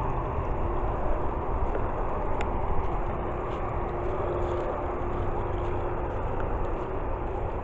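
Steady outdoor background noise, a low rumble and hiss, with a faint steady hum in the middle.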